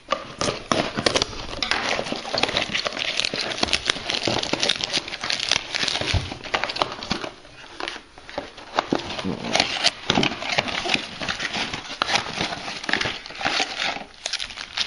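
Plastic wrapping and cardboard packaging of a retail trading-card box being torn open and handled, with steady crinkling and crackling and many small sharp clicks.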